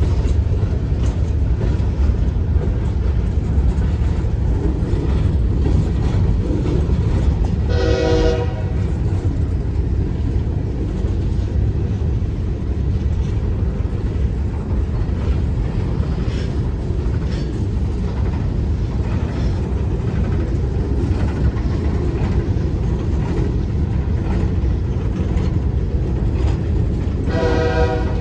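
A train rolling past with a steady low rumble, and two short horn blasts, one about eight seconds in and one near the end.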